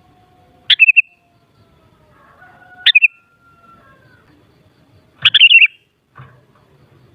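Sooty-headed bulbul singing short, bubbly chirped phrases, three of them about two seconds apart.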